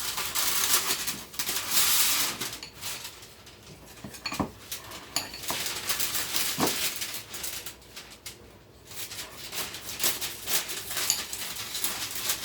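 Kitchen utensils scraping and clinking against dishes: a steady scraping for the first couple of seconds, then scattered knocks, and rapid light clicking near the end.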